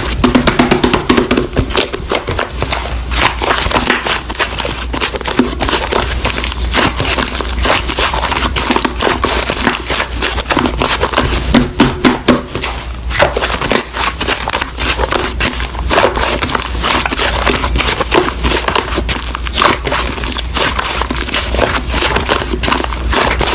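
Slime being squished and pressed by hand, giving a dense, continuous run of crackling and popping clicks.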